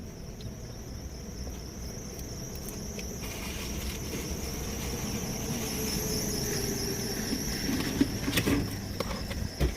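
A vehicle passing by, its sound swelling over a few seconds and fading, over a steady high-pitched insect trill. A few light clicks come near the end.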